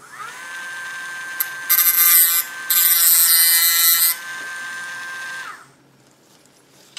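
Dremel rotary tool with a metal cut-off wheel spinning up to a steady high whine, then grinding into a metal rod twice for about a second each, a loud hissing rasp, before it is switched off and winds down about five and a half seconds in.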